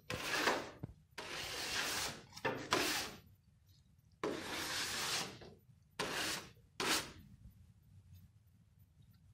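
Aerosol spray-paint can sprayed in six short bursts against a canvas, each hiss half a second to a second long, starting and stopping sharply.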